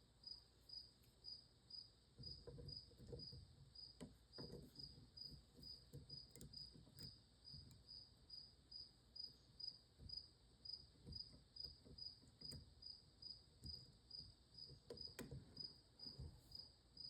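A cricket chirping faintly and steadily, about two to three short high chirps a second, with faint knocks of a tool being handled.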